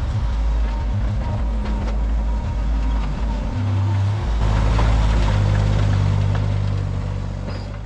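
A large engine or heavy machine running with a steady low rumble and some rattling clicks, fading out near the end.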